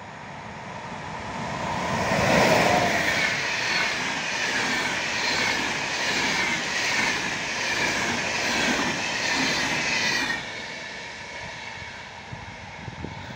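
Siemens EU44 electric locomotive and its passenger coaches passing at speed. The sound swells to its loudest as the locomotive goes by about two seconds in. It then holds as a steady rush with a rhythmic wheel clatter while the coaches pass, drops off suddenly near ten seconds as the last coach goes by, and fades.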